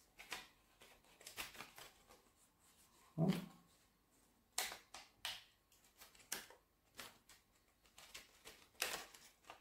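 A sheet of graph paper rustling and crackling in the hands as a broom straw is pushed through holes pierced in it, in light, irregular scrapes and clicks. A brief low hum from a man's voice comes about three seconds in.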